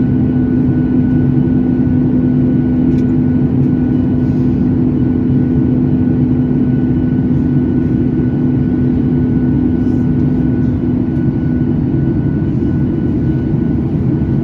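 Boeing 737 MAX cabin noise in flight: the CFM LEAP-1B engines give a steady hum with a rushing airflow beneath it, holding level throughout.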